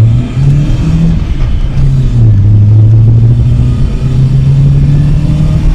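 Lada Priora's four-cylinder engine accelerating hard, its note climbing, dropping once about two seconds in at a gear change, then climbing steadily again.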